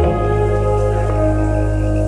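Background music: calm new-age style music with held synth-like chords over a steady bass, the chord changing right at the start.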